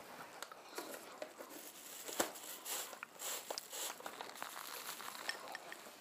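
Soft crinkling and rustling with scattered small clicks, one sharper click about two seconds in.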